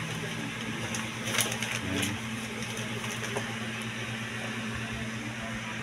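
A steady low hum with a few light clicks and knocks from handling.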